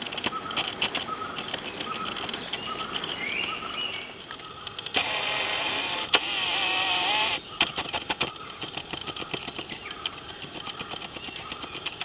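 Birds calling with short, repeated rising whistled notes over a steady insect buzz and scattered clicks. In the middle comes a louder rushing noise that lasts about two and a half seconds.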